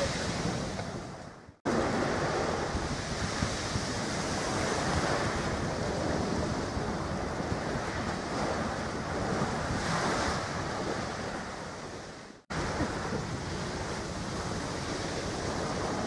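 Wind blowing on the microphone over the sound of water at the waterside, a steady rushing noise. It fades out twice, about a second and a half in and again near twelve seconds, and comes back suddenly each time.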